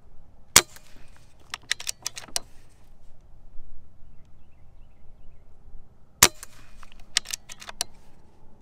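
Two shots from an Umarex Fusion 2 .177 CO2 pellet rifle with a built-in silencer, about five and a half seconds apart, each a short sharp crack. Each shot is followed within a second or two by a quick run of smaller metallic clicks as the bolt is cycled to chamber the next pellet from the magazine.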